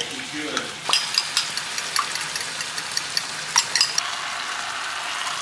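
Chicken and onions in a dashi and soy sauce broth sizzling and simmering in a frying pan as beaten egg is poured over them. A few sharp clicks sound over the steady sizzle.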